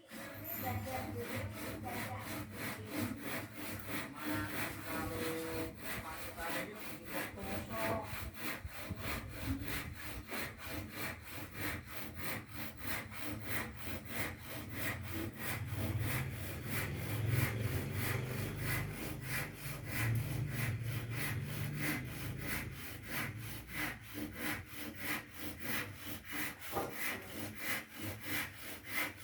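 Hand saw cutting through wood in a steady back-and-forth rhythm of about two strokes a second.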